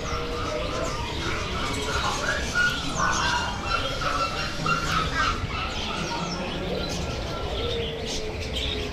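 Many caged songbirds chirping and calling at once, a dense jumble of short high calls over steady background noise.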